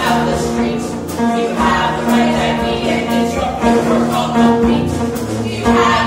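A small pit orchestra of woodwinds, strings and drums playing a stage-musical number, with long held notes over light percussion.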